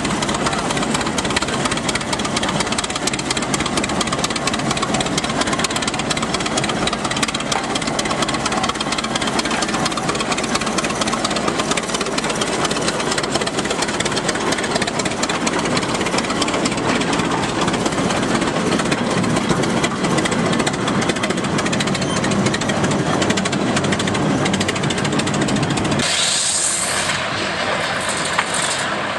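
Antique Minneapolis Threshing Machine Co. tractor's engine running with a rapid, even clatter. About three seconds from the end it cuts abruptly to a steady high hiss.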